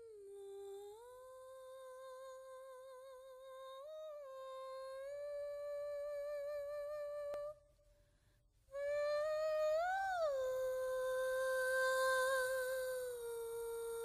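A person humming a wordless tune in long held notes with a slight waver, sliding between pitches. It breaks off for about a second halfway through, then comes back louder, swelling up in pitch before settling on a long low note.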